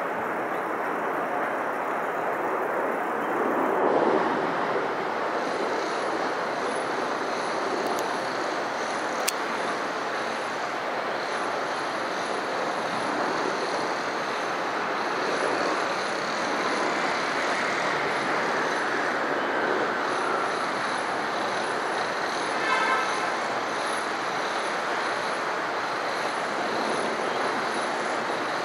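UH-60 Black Hawk helicopter flying past, a steady noisy rotor and turbine sound with a brief louder swell about four seconds in.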